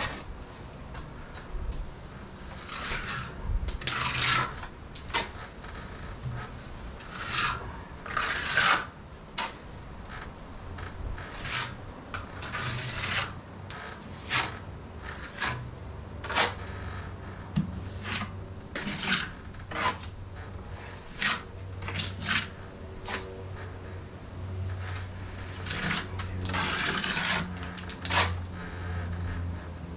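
Trowel scraping wet stucco patch onto a ceiling and off a hawk in irregular strokes as a second coat is spread over the holes.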